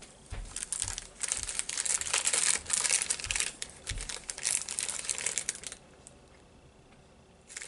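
Snack wrapper crinkling as it is handled, in dense crackly rustles for about six seconds, then stopping.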